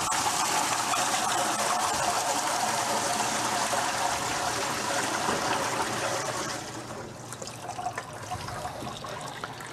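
Water pouring from a 5-gallon plastic bucket into a band saw's coolant tank, filling it to dilute water-soluble cutting fluid. A steady splashing pour weakens to a thinner trickle about seven seconds in as the bucket empties.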